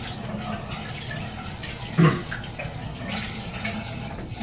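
Tap water running into a bathroom sink as soapy hands are rinsed under it, with a brief thump about two seconds in.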